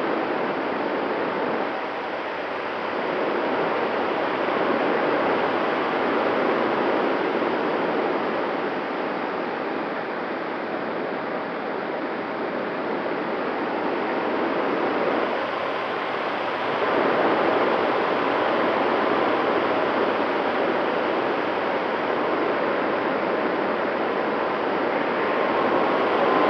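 Rushing airflow over an F5-B electric glider's fuselage, picked up by its onboard camera, swelling and easing slowly as the airspeed changes. A faint steady whine runs underneath.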